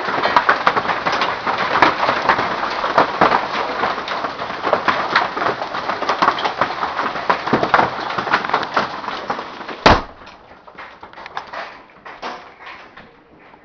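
Hailstones pelting down in a dense clatter of many small impacts. About ten seconds in there is one loud knock, and after it the clatter is much quieter and sparser.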